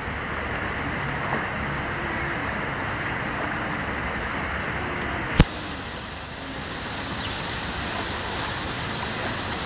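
Steady rushing background noise with faint distant voices, and a single sharp click a little past halfway.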